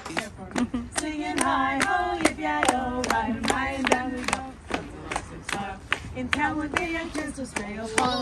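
A small group of people singing together and clapping their hands in a steady rhythm, about two to three claps a second.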